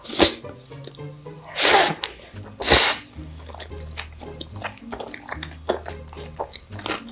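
A person slurping jjajangmyeon (black bean noodles) in three loud, quick slurps in the first three seconds, followed by soft wet chewing clicks. Background music plays throughout.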